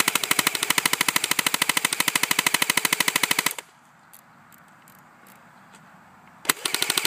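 JG AUG airsoft electric rifle firing on full auto, with rapid even shots at about fourteen a second, emptying the magazine. A long burst of about three and a half seconds stops, and after a pause of about three seconds a second burst starts near the end.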